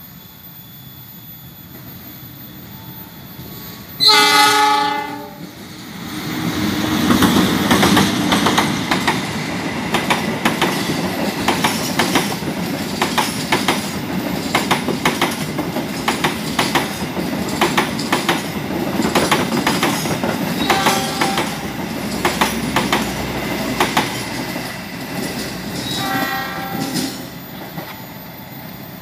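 A passenger train's locomotive horn sounds one loud blast, then the train runs past with its wheels clattering over the rail joints in a steady stream of clicks over a rumble. A second, shorter and fainter horn note comes near the end of the pass.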